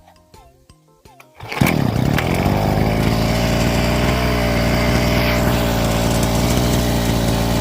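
Petrol weed whacker engine coming in abruptly about a second and a half in, its pitch dipping briefly and then climbing back before it settles into a loud, steady run.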